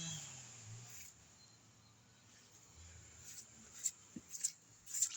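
A chainsaw's engine note fades out about a second in. Then come a few faint, sharp snaps and clicks, like brush and twigs being handled.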